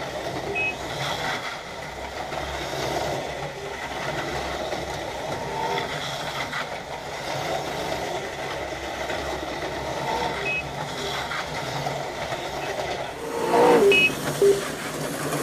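Auto World Thunderjet 500 HO slot cars running laps, a steady whir of their small motors and gears on the track. Short electronic beeps from the lap-timing system sound three times.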